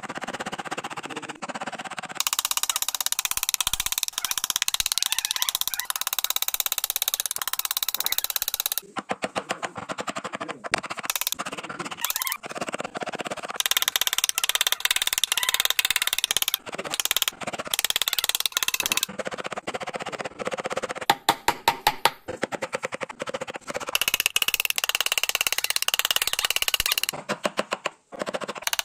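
Wooden mallet striking a carving chisel into a wooden door panel, in rapid runs of sharp taps broken by short pauses.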